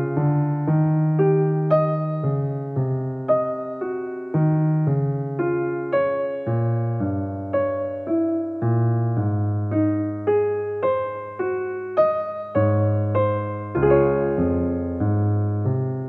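Background piano music: a slow melody of evenly paced notes, each dying away, over held low bass notes.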